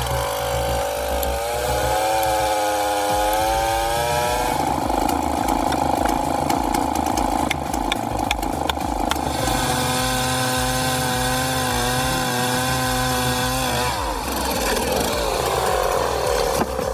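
Chainsaw running hard, its engine note wavering up and down as it cuts, changing pitch a few times.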